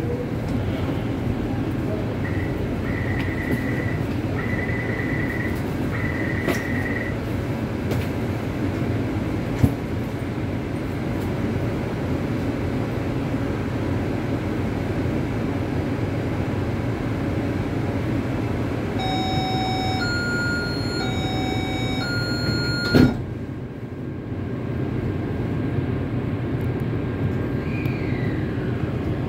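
A Taipei Metro C371 car stands at a platform with a steady hum and rumble. Three long electronic beeps sound early on. About 19 seconds in, a door-closing chime alternates between two pitches, and the doors shut with a thud. Near the end a falling whine sounds as the train's IGBT-VVVF drive comes on.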